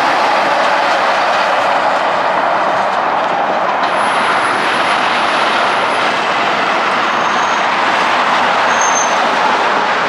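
Heavy vehicles rolling past: a loud, steady rolling noise with no let-up, crossed by brief faint high squeals around the middle.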